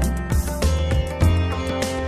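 Background music: plucked strings over a steady bass beat.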